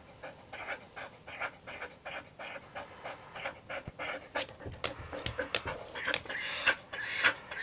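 Elderly Samoyed panting rapidly and rhythmically, about three breaths a second, growing louder toward the end. It is held through a seizure brought on by a brain tumour.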